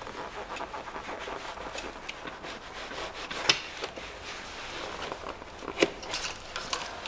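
A gloved hand rubbing and handling parts on a stripped-down engine: steady rustling and scraping with small clicks, and two sharp knocks, one midway and one near the end.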